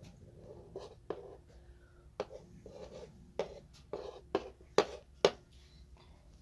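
Light irregular knocks and clicks of things being handled, coming more often in the second half, with the two sharpest about a second before the end.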